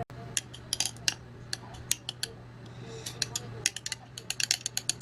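Light, irregular clinks and taps of a utensil against dishes, coming in small clusters.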